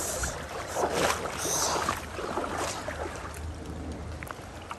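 Steady wash of river water with low wind rumble on the microphone, and a few brief rustles of movement and handling close to it between about one and two seconds in.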